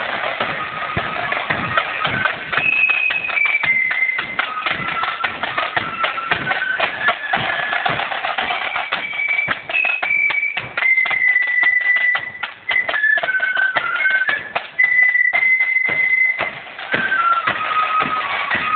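Marching flute band playing: a bright flute melody over side drums beating rapid rolls and strokes.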